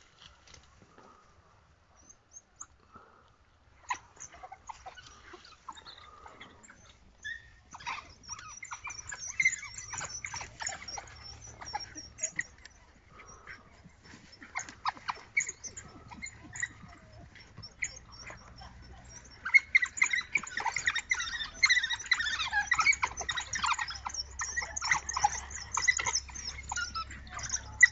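A pack of African wild dogs at a kill, giving many short, high-pitched twittering calls that overlap one another. The calls are sparse at first, pick up after about eight seconds, and are busiest and loudest over the last third.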